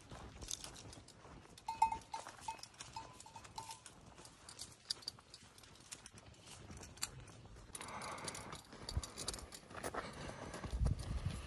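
Footsteps crunching along a dry dirt trail. About two seconds in there is a quick run of about six short ringing notes. Near the end the footsteps get louder, with a few low bumps.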